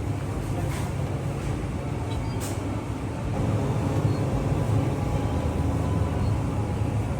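Steady low road and engine rumble inside a moving car, getting a little louder about three seconds in.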